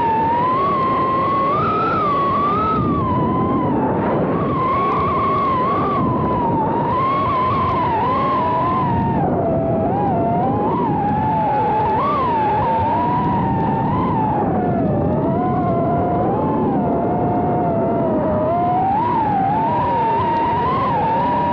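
FPV quadcopter's motors and propellers whining close to the microphone, the pitch wavering up and down constantly with the throttle, over a steady rushing noise.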